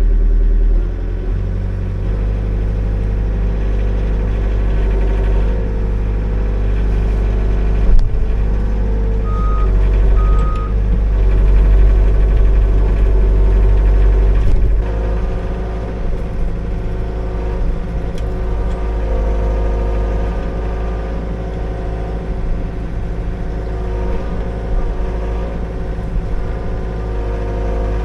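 Liugong 9051F mini excavator's diesel engine running as the machine works, its note shifting as the hydraulics take load. A sharp knock comes about a third of the way in, followed by two short high beeps.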